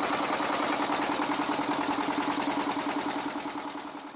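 Boat engine running steadily as the boat moves off under power, with an even, fast beat over a steady hum. It fades a little near the end.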